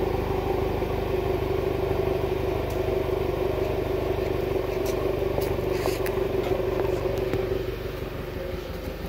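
Subaru WRX's turbocharged flat-four engine idling steadily, heard from right at its exhaust tips.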